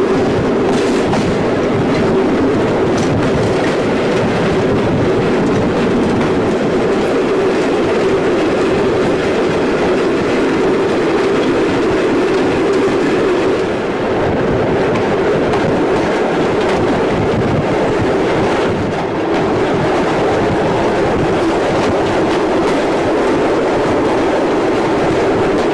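Steam-hauled passenger train running along the line, heard from a carriage at an open window: a steady, loud rolling noise of the train on the rails.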